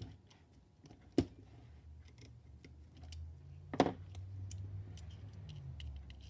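Metal chassis of a Lionel #51 switcher handled on a workbench: a sharp tap about a second in and a louder knock near the middle, then a low steady rumble as the chassis is pushed along on its wheels, turning the freshly greased gear train.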